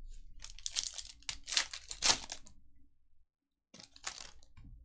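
Foil wrapper of a Panini Prizm basketball retail pack being torn open and crinkled by hand: a run of rustling rips over the first two seconds or so, then a shorter crinkle near the end.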